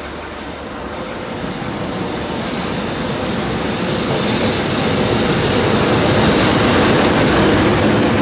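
EH500 electric locomotive hauling a train of E721 series electric multiple-unit cars past at low speed, its rumble growing steadily louder as it comes close and the cars roll by. A steady hum runs under the rumble.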